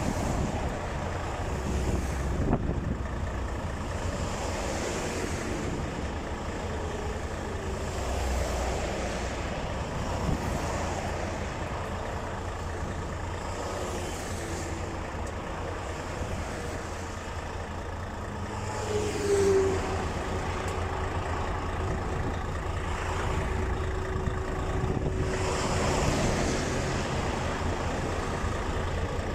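Highway traffic, trucks and cars, passing at speed close by, each one swelling and fading over a steady low rumble. A steady hum comes in about two-thirds of the way through.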